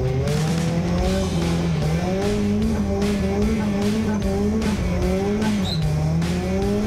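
Drift car engine revving up and dropping back again and again, about once a second, as the car slides, with tyres squealing.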